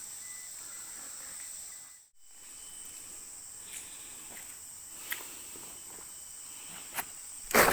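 Steady rushing of a distant waterfall, running loud and full from rain upstream, under a constant high insect drone. The sound drops out briefly about two seconds in, and a few faint clicks come later.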